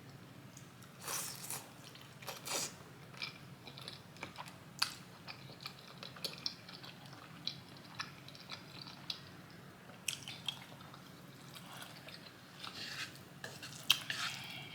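Close-miked eating sounds: wet smacking and chewing of creamy carbonara-style ramen noodles and pork dumplings, with irregular sharp clicks and slurps.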